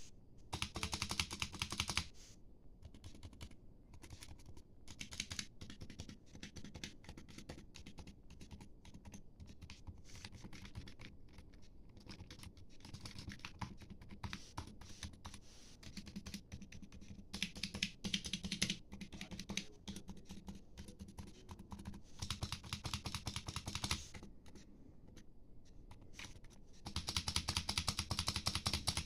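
Typing on a Razer Huntsman Mini keyboard with red linear optical switches: a fast, dense stream of keystrokes, with louder spells of rapid typing at the start, in the middle and near the end, and softer typing between.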